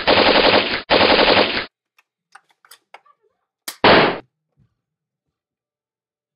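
Simulated machine-gun fire: two long rapid-fire bursts that stop sharply a little under a second and under two seconds in, a few faint clicks, then one short burst about four seconds in.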